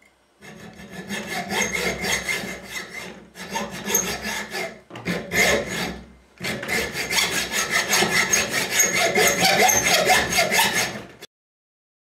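Hand hacksaw sawing into the metal body of a cheap padlock held in a vise, cutting into the pin side to reach the springs: quick, even back-and-forth strokes, with two short pauses, stopping abruptly near the end.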